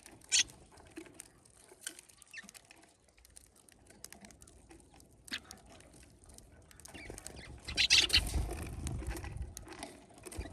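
Tits and sparrows at a bird feeder: scattered light taps and scuffles of birds pecking and moving about, with a sharp burst just after the start and a louder flurry about eight seconds in.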